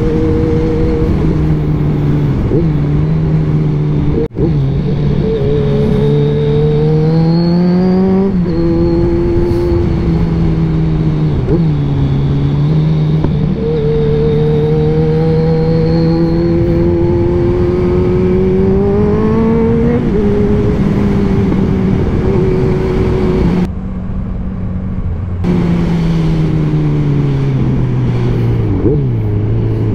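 Kawasaki Z1000 inline-four motorcycle engine with an aftermarket exhaust running under way, its pitch climbing and falling several times as the throttle is opened and eased off, with steadier running in between. A single sharp click comes about four seconds in.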